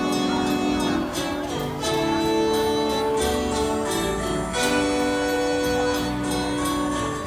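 Background music: sustained instrumental chords with a steady beat.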